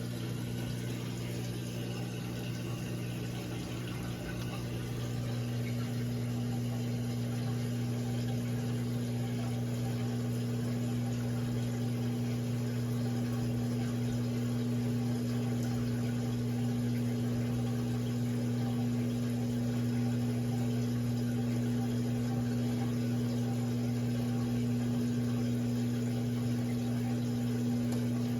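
Electrolux LE06DBD top-load washing machine running steadily: a constant low hum with water noise.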